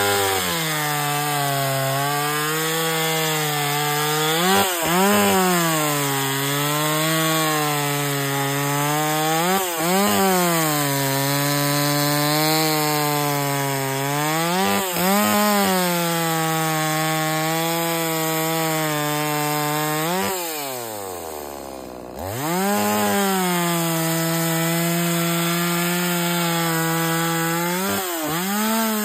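Holzfforma G180 two-stroke chainsaw, a Stihl MS 180 clone, running at full throttle through a series of crosscuts in logs. The engine note sags under the load of each cut and rises briefly between cuts, about every five seconds. About two-thirds through, the throttle comes off and the engine falls to idle for a moment before revving up again.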